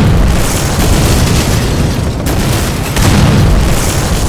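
Explosion sound effect: a loud, sudden blast that keeps rumbling deep and heavy, swelling again about three seconds in.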